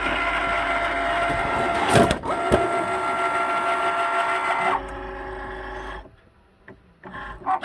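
Cricut Maker cutting machine running, with a grinding noise from its clamp B tool holder: a steady mechanical whirr with held tones and two sharp knocks about two seconds in. It drops to a quieter run about five seconds in and stops about a second later, with a few clicks near the end.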